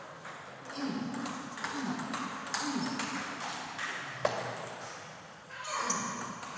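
Table tennis rally: the ball clicking sharply off the paddles and bouncing on the table in quick succession.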